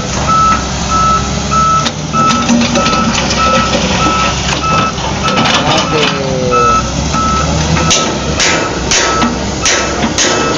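A truck's reversing alarm beeping steadily, about two beeps a second, over the truck's engine running. Several sharp knocks sound near the end.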